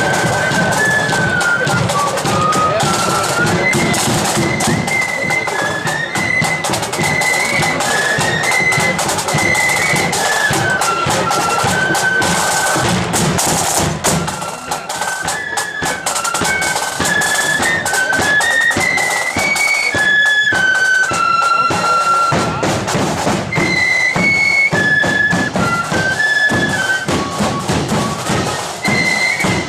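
Marching flute band playing a tune: a melody on flutes over snare drums and a bass drum.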